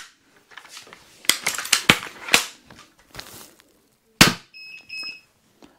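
Steambow Stinger II crossbow with a 150 lb limb being handled and readied with several clicks and clacks, then fired once with a sharp snap about four seconds in. Right after the shot, a chronograph gives a short high electronic beep twice as it registers the arrow's speed.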